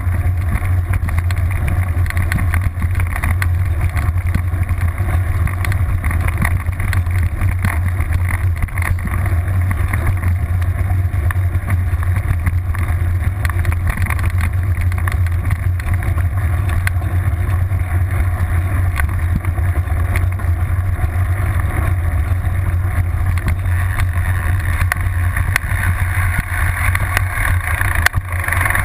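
Steady rumble of wind buffeting and knobby rear tyre rolling over a gravel track, picked up by an action camera mounted on a mountain bike's seatpost. A brief knock near the end.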